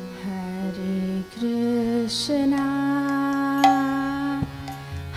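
A young woman sings a slow devotional kirtan melody into a microphone over the sustained reed chords of a harmonium. Her notes are long and held, stepping from one pitch to the next.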